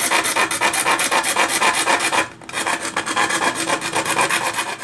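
Hacksaw blade sawing back and forth through a CRT TV's printed circuit board, a fast rasping scrape stroke after stroke, with a brief pause about two seconds in before the sawing resumes.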